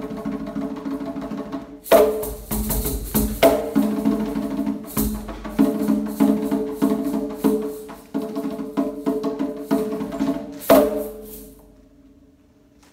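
Music with steady sustained tones and sharp percussive hits, the strongest hits about two seconds in and near the end; the music fades away about a second before the end, leaving a faint hum.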